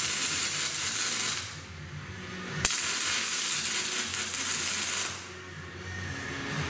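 Electric arc welding on an aluminum roof-rack frame and decking: a steady crackling hiss of the arc that stops about a second and a half in. A second later it strikes again with a sharp click and runs for about two and a half seconds before stopping.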